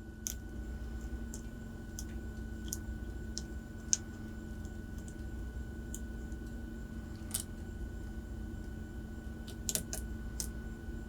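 Light, irregular metallic clicks of a lock pick working the pins of an ACE A527 padlock under tension, as pins click into place while it is picked.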